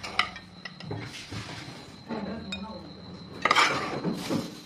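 Scattered light clinks and knocks of a metal ladle against an aluminium pot and dishes, with a louder clatter about three and a half seconds in.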